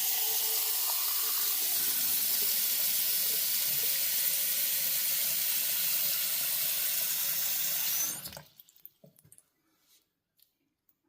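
Water running steadily from a faucet into a sink, shut off about eight seconds in, followed by a few faint drips and ticks.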